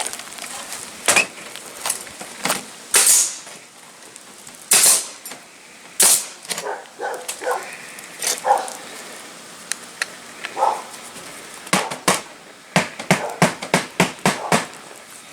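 Footsteps scraping and crunching on asphalt shingles, with scattered knocks. Near the end comes a quick run of about eight sharp knocks, about four a second.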